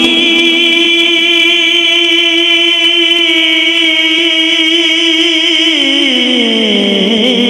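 A man's voice reciting an Urdu naat, holding one long sung note at a steady pitch, then gliding down in pitch over the last second or two.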